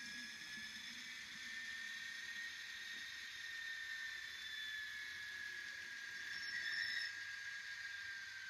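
Model railway shunting tractor (RhB number 114) running slowly, its small electric motor a faint whine that wavers gently in pitch over a steady hiss, with a brief louder rattle about seven seconds in.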